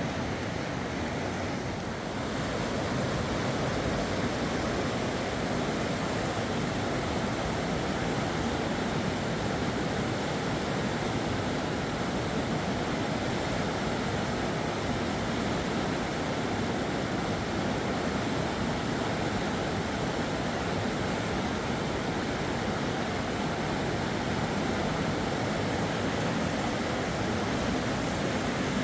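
Fast river water rushing steadily, a little softer for the first two seconds.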